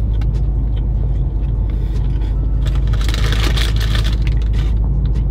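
Steady low hum of a car idling, heard from inside its cabin. About three seconds in, a paper bag crinkles for a second or so.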